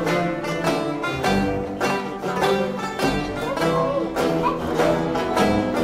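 Background music: a lively instrumental tune on plucked string instruments with a steady beat.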